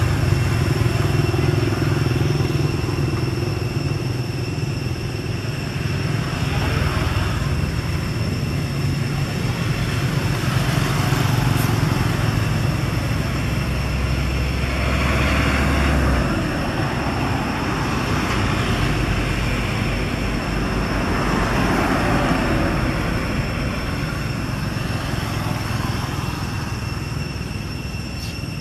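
Road traffic: vehicles passing one after another every few seconds, each swelling and fading over a steady low engine rumble, with a faint steady high tone behind.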